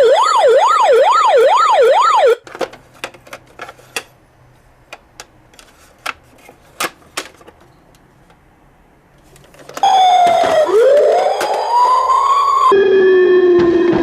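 Toy emergency vehicle's electronic siren. It plays a fast up-and-down yelp for about two seconds, then stops for several seconds with only scattered clicks, and about ten seconds in a slower sweeping wail begins, switching pattern shortly before the end.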